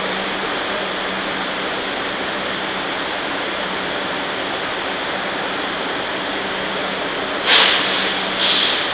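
R62A subway car standing at the platform, its onboard equipment running with a steady hum and whoosh of air. About seven and a half seconds in come two sudden loud hisses, the first the louder.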